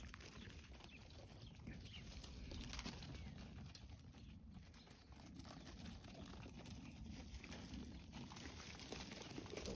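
Faint sounds of kunekune piglets moving about on dry dirt: soft scattered steps over low outdoor background noise.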